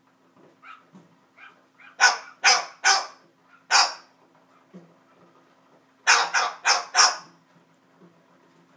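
White cockatoo imitating a dog's bark: a few soft calls, then three quick barks, a single bark, and four barks in quick succession.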